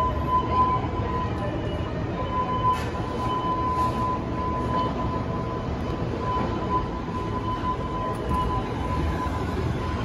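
Building fire alarm sounding one steady high-pitched tone that wavers in strength, over a constant low rumble.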